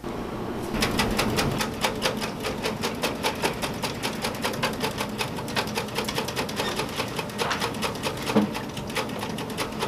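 Rapid, evenly spaced clicking, several clicks a second, over a faint low tone; it starts abruptly and keeps on steadily.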